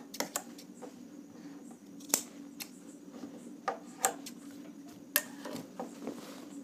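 Tailor's scissors snipping loose threads: several sharp separate clicks spread over a few seconds, over a low steady hum.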